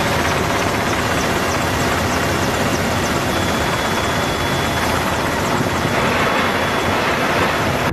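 Mi-24 attack helicopters in low flight: a steady rush of rotor and turbine noise that cuts off abruptly at the end.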